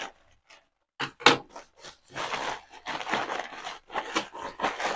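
Plastic courier mailer bag and bubble wrap crinkling and rustling in quick, irregular crackles as a bubble-wrapped package is pulled out of the bag, starting about a second in.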